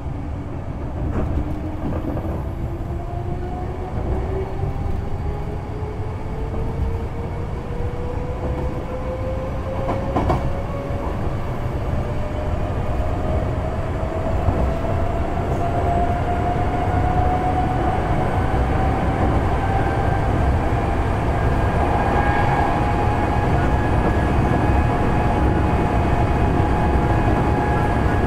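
Kintetsu 6020 series electric train running, with a whine from its traction motors and gears rising steadily in pitch as the train picks up speed, then levelling off near the end. A steady low rumble of wheels on track runs underneath, with a few sharp rail-joint clacks.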